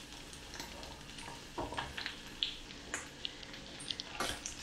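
Butter sizzling faintly as it melts in a hot nonstick wok, with scattered soft scrapes and taps of a silicone spatula pushing it around.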